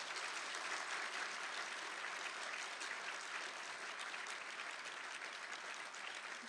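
Audience applauding: many hands clapping steadily, easing off slightly toward the end.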